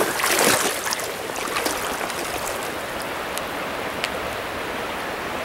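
Steady rush of river water flowing past, an even hiss with no pauses. A few short sharp noises stand out in the first second.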